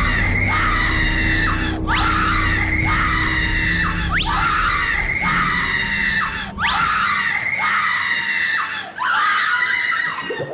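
A woman screaming in terror, one long, high scream after another, each about two seconds long with barely a break between them.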